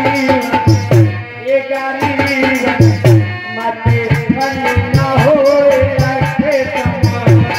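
Indian devotional folk music, a bhajan to the goddess: a wavering melody line over steady drum strokes.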